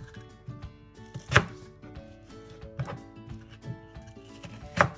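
A crinkle-cut knife slicing through raw potatoes and hitting the cutting board: two sharp knocks, about a second in and near the end, with lighter taps between. Background music plays underneath.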